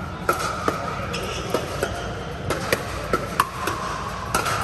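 Pickleball paddles striking a hard plastic ball in a quick exchange: about ten sharp pops, roughly two a second and uneven in strength, over a steady background hum.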